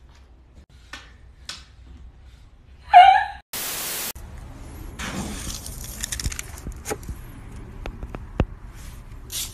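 A short, loud pitched cry about three seconds in, followed by a half-second burst of TV static. After the static comes a rustling noise with several sharp clicks.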